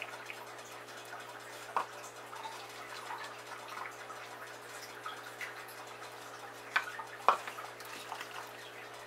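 Light clicks and taps on glass canning jars filled with orange slices in hot syrup as they are debubbled and a plastic canning funnel is moved onto a jar, over a steady low hum. There are a few sharp clicks, about two seconds in and twice around seven seconds.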